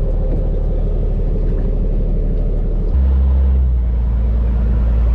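Charter fishing boat's engine running with a steady low rumble, which grows louder about three seconds in as the engine note steps up.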